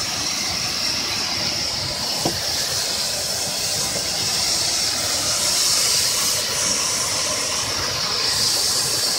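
Steam hissing steadily from a fumarole-like thermal vent, an even rushing hiss that swells slightly midway.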